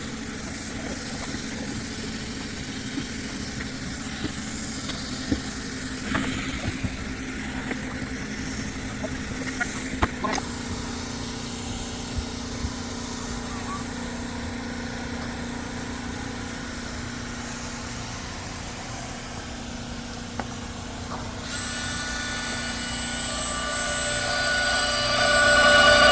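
A machine runs with a steady hum, with scattered short knocks. About three quarters of the way through, a louder whine with several steady pitches sets in and grows.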